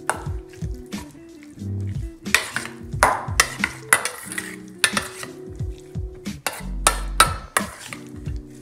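Metal spoon stirring raw marinated pork in a stainless steel mixing bowl, with irregular clinks and scrapes against the bowl.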